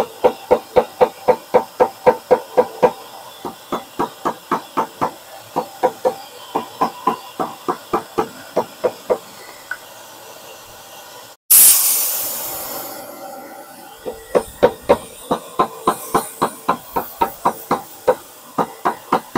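Leather-covered wooden shaping mallet tapping rapidly on a pressurized Harley-Davidson steel gas tank, about five taps a second in three runs, working the dent out. Partway through, a loud hiss of air that fades over about a second and a half.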